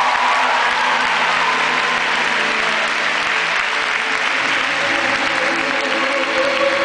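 Large audience applauding steadily, with show music playing beneath that comes up near the end.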